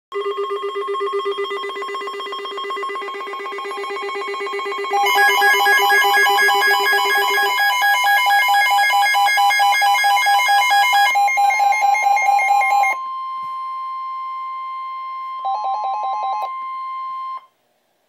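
Two NOAA weather alert radios sounding a flood warning alert: rapid electronic alarm beeps on several pitches overlap, getting louder about five seconds in. After about thirteen seconds only the steady NOAA Weather Radio warning tone is left, with one short burst of beeps, and it cuts off just before the end.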